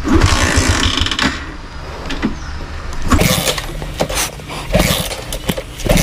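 Mahindra Centuro motorcycle being kick-started again and again without the engine catching; its battery is flat, so self-start won't work. Each kick brings a surge of mechanical noise, with a quick run of low thuds in the first second.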